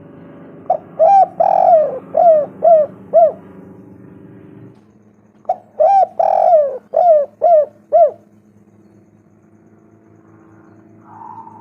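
Spotted dove cooing: two phrases of about six notes each, a few seconds apart, each with one longer, drawn-out note near its start among shorter clipped coos.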